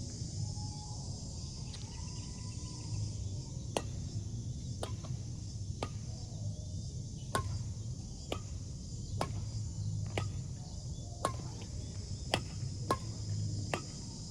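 Badminton rackets hitting a shuttlecock in a rally: sharp clicks roughly once a second, starting a few seconds in, over a steady background of insect chirring.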